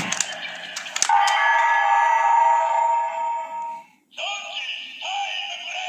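Bandai DX Ziku-Driver toy belt being rotated with a few sharp plastic clicks, setting off its electronic transformation sound for the Zonjis Ridewatch. A held chime of steady electronic tones lasts about three seconds, followed by the toy's recorded voice calling out in short phrases.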